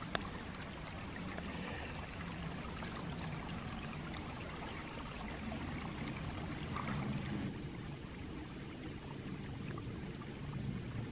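A small stream trickling steadily.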